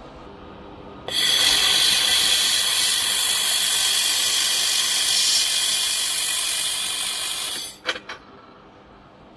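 1.5 kW fiber laser welding machine running a weld, a loud steady hiss that starts suddenly about a second in and cuts off near the end, followed by two or three sharp clicks.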